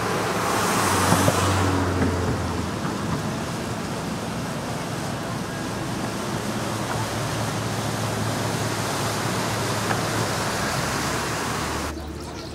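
Steady rushing noise of road traffic and churning water, with the low hum of a passing river cruise boat's engine underneath. The sound changes abruptly and drops near the end.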